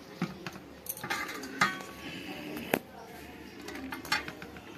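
A spoon clinking and scraping against a cooking pot as rice is tipped into the biryani pot. There are a few sharp knocks, one with a brief metallic ring.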